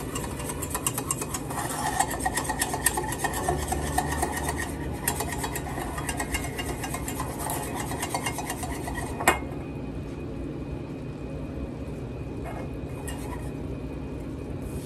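Wire whisk rattling rapidly against the inside of a small stainless-steel saucepan while stirring a thick roux for bechamel. The rattling stops about nine seconds in with one sharp clink, leaving a steady low hum.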